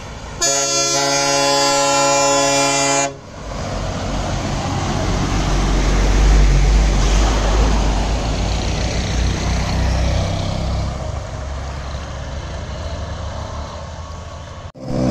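A bus horn sounds one steady blast of about three seconds. Then the bus drives close past through floodwater: its engine rumbles and the water thrown up by its wheels rushes and splashes, loudest as it goes by, then fades.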